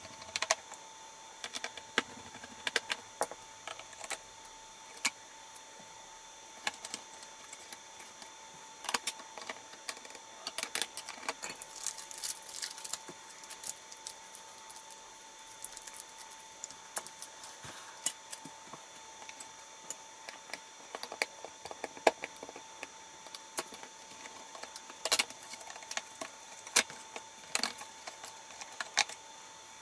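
Irregular small clicks, taps and clatters of plastic and metal laptop parts and hand tools being handled while the laptop is taken apart.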